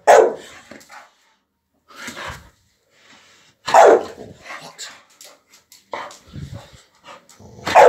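Pet dog giving several short barks a second or two apart, the loudest about four seconds in, barking for its toy during play.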